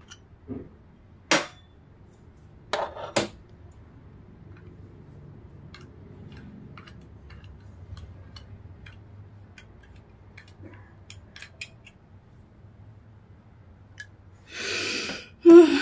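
A few sharp clicks and taps, the loudest about a second in and a pair around three seconds in, with faint ticks between; near the end a burst of rustling and a loud knock.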